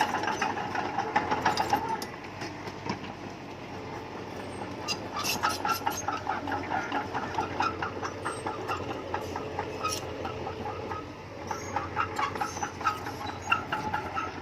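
Crawler bulldozer working: its diesel engine runs under a rapid, uneven clanking and rattling of the steel tracks.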